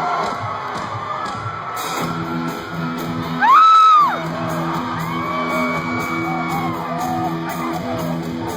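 Live rock band starting a song in a large hall: a repeating guitar riff comes in about two seconds in over crowd cheering. About halfway through, someone in the crowd lets out a loud whoop that rises and falls.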